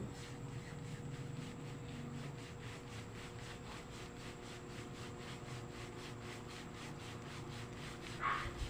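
Hands rubbing over oiled skin in a massage, a soft, fast and even rubbing, several strokes a second. A brief hiss near the end.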